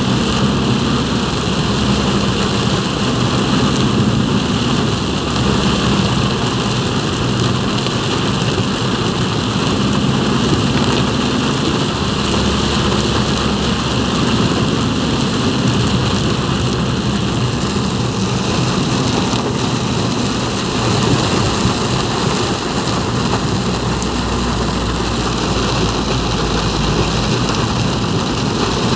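Heavy rain pouring steadily on a moving vehicle, over a low, steady rumble of the vehicle running on the wet road.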